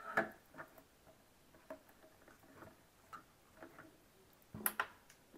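Light plastic clicks and taps as a plastic funnel is handled and fitted into the neck of a square plastic bottle, with a louder knock near the end.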